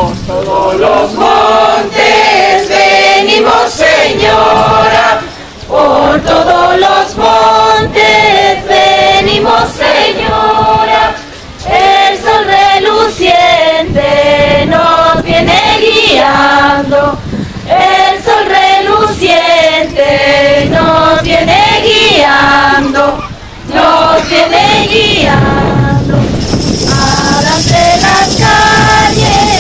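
A group of women singing a devotional song together, largely unaccompanied, in long phrases with short breaths between them. Near the end, jingling tambourines come in under the voices.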